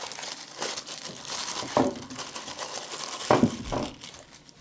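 Packaging crinkling and rustling as it is handled, with light knocks about two and three seconds in.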